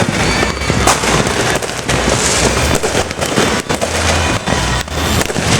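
New Year's fireworks and firecrackers going off all around, a continuous barrage of overlapping bangs and crackling pops.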